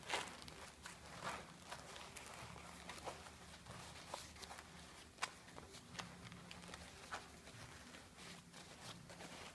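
Hands folding and tucking an obi sash into a bow, the fabric rustling in short, scattered swishes and soft clicks.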